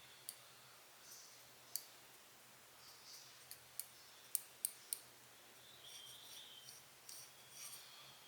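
Faint, sharp little clicks and short soft rubbing noises from a camera lens being handled and wiped clean, with three louder clicks in quick succession about halfway through.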